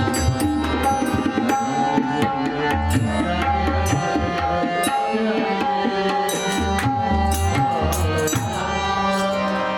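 Devotional bhajan music: tabla drumming with deep strokes coming in groups, over long held melody notes and sharp metallic strikes.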